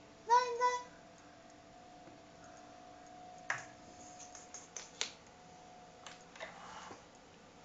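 A brief high-pitched call just after the start, then a few sharp light clicks and taps and a short rustle, from a kitten playing with a TV antenna cable.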